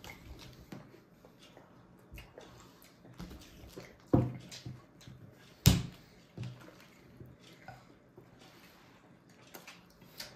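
Small scattered taps, knocks and handling noises of babies eating finger food, with two louder knocks about four seconds and just under six seconds in.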